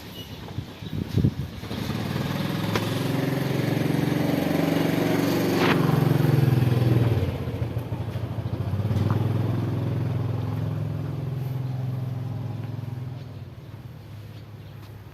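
A motor vehicle engine passing by, growing louder to a peak about six seconds in with its pitch dropping, then a second swell that fades away near the end.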